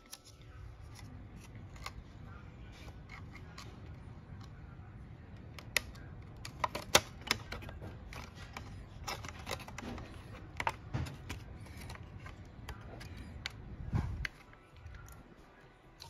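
Irregular small clicks and plastic ticks from handling a microwave's control panel and circuit board, as the membrane switch's flat ribbon cable is worked into its board connector. The clicks come thickest in the middle, over a faint low background hum.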